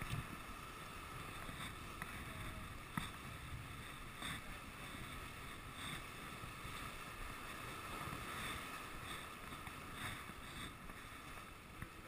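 Steady outdoor noise of wind and rushing water, with a few faint knocks or clicks.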